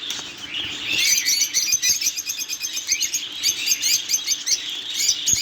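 Many small cage birds chirping together, a dense chatter of rapid high chirps that thickens about a second in, over a faint low steady hum.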